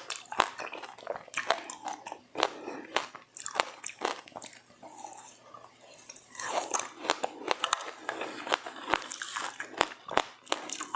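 Close-up chewing and crunching of seeds, with many sharp crackles. The crunching eases for a moment about halfway through, then comes back denser.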